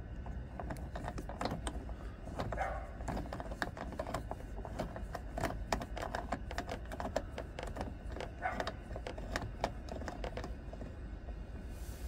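Rapid, irregular clicking of a small ratchet and bit turning the lock-retaining screw in the door's end face, with the clicks thinning out near the end, over a low steady rumble.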